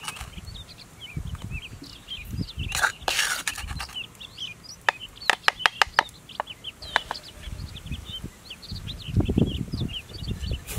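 A metal spoon scraping chili paste out of a stone mortar and clinking against a coconut-shell bowl, with a quick run of sharp taps about halfway through. Birds chirp steadily in the background, and there is a low muffled rustle near the end.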